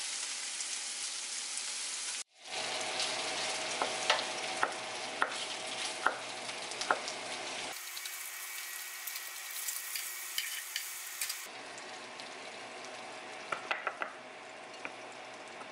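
Pork belly slices sizzle in a frying pan. After a short break, a knife chops Cheongyang green chili peppers on a wooden cutting board in sharp taps about every half second, over a steady hiss. Near the end, a wooden spoon knocks and stirs in a plastic container.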